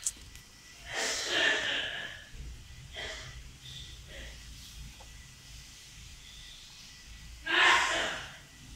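Sharp, breathy puffs of a person's breath, like snorts or gasps, close to the microphone: a loud one about a second in, fainter ones between, and another loud one near the end.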